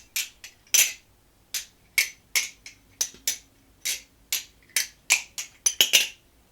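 Flytanium Tatersong butterfly knife being flipped: its handles clack shut and open against the blade in a quick, irregular run of sharp clicks, about twenty in all.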